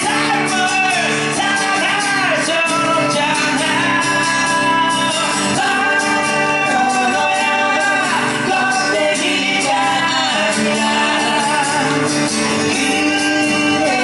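Live rock song: two male singers singing together into microphones over acoustic guitar.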